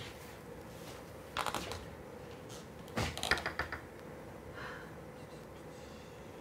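Two short bursts of rustling and rapid clicking as belongings are handled and rummaged through, the second a little past halfway and the louder, over a faint steady electrical hum.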